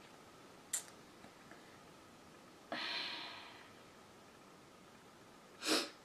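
A woman's breathing close to the microphone: a long exhale starting suddenly a little under three seconds in and fading away, then a short, louder breath near the end. A faint click about a second in.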